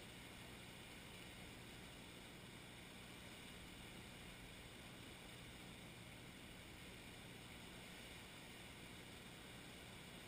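Near silence: a steady faint hiss with no distinct events.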